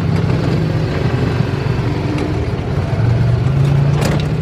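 UTV side-by-side engine running while driving over a dirt track, heard from inside the cab. The engine pitch dips after about a second and rises again near the end, with a few knocks from the bumpy ride near the end.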